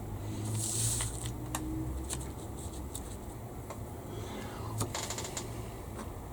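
Light clicks and taps of small plastic model-kit parts being picked up and handled, scattered irregularly over a low steady hum, with a brief hiss about a second in.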